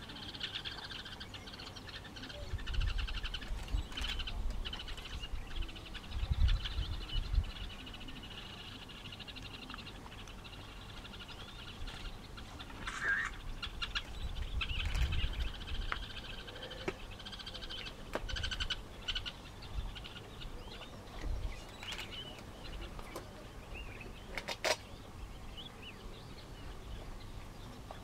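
Birds chirping and trilling steadily in the background, broken by a few low rumbling gusts and a sharp click near the end.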